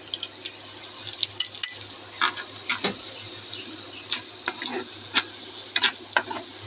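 A spoon stirring frying onions in oil in a karai, scraping and knocking against the pan in short irregular strokes over a low sizzle.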